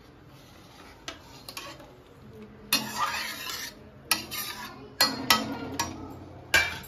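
Steel ladle stirring simmering paneer gravy in an iron kadai, scraping along the pan. Quiet at first, then louder scraping from a little under halfway, with several sharp clinks of metal on metal.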